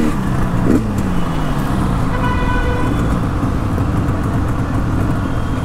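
Tuned Yamaha RD350 two-stroke parallel twin with an RD400 exhaust running at low revs, its pitch falling and settling in the first second. A vehicle horn sounds for about a second, about two seconds in, over traffic noise.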